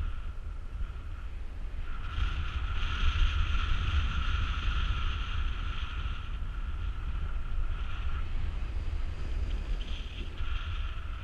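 Wind buffeting the microphone of a camera on a paraglider in flight: a steady low rumble with a higher whistling tone that swells about two seconds in, fades around eight seconds and comes back near the end.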